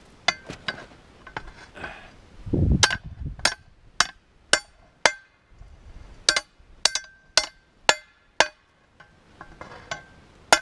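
Hammer blows on a hot steel rod, a small motor shaft, being straightened on an improvised anvil: a dull thud, then a run of sharp metallic clinks with a short ring, about two a second, with a couple of brief pauses.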